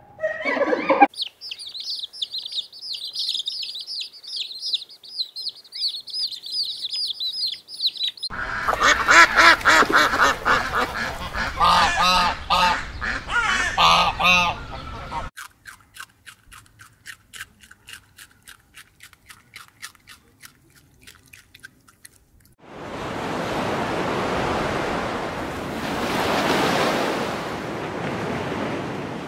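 High, rapid chirping for several seconds, then a flock of domestic ducks quacking in a dense chorus. Next comes a fast run of dry clicks, and then a steady rush of surf washing over a sandy shore, swelling briefly near the end.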